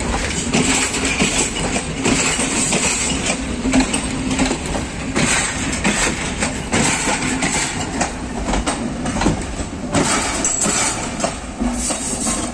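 Passenger train running on the rails: steady rumble and clatter of carriage wheels over rail joints, with sharp knocks scattered throughout and a steady low hum underneath.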